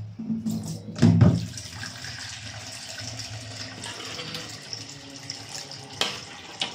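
Watery chicken broth in a wok being stirred with a metal ladle: the liquid sloshes steadily, with a loud thump about a second in and two sharp clicks near the end.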